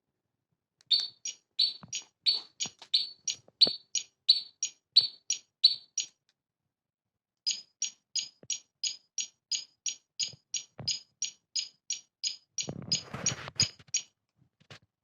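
Bicycle alarm tail-light unit's electronic sounder giving rapid high chirps, about three a second, in two runs with a pause of about a second and a half between them. Light clicks of handling sound under them, with a short rustle near the end.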